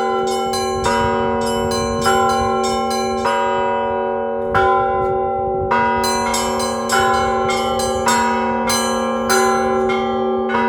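Orthodox ensemble peal of cathedral bells rung by clapper: a deep bell hums steadily under strokes of middle bells about once a second, with quick patterns of small high bells over them. The small bells stop for about a second around four seconds in, then come back in.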